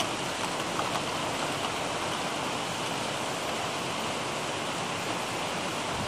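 Heavy rain falling steadily, an even hiss with no thunder.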